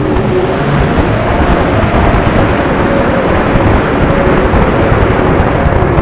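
Onboard audio from a 5-inch FPV racing quadcopter in flight: a loud, steady rush of wind buffeting the camera microphone, with a faint whine from the motors and propellers under it.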